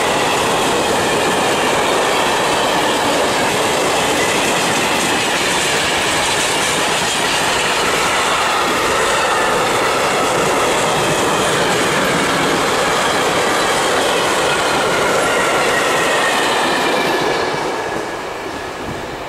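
Freight train wagons, container flats and then covered wagons, rolling past at speed, with the steady noise of wheels on rail and high wavering wheel squeal. The noise falls away about 17 seconds in as the last wagon passes.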